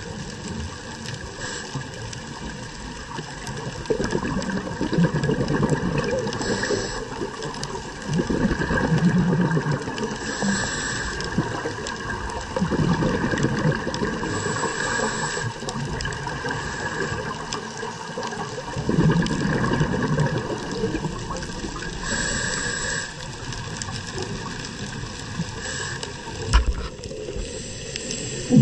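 Underwater sound through a diver's camera: muffled water noise with scuba breathing. Short regulator hisses on each inhale alternate with rumbling bursts of exhaled bubbles every few seconds.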